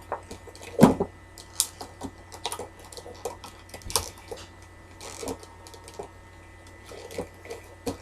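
Stiff plastic phone packaging being pried at and handled, giving irregular clicks and crackles. The loudest comes about a second in.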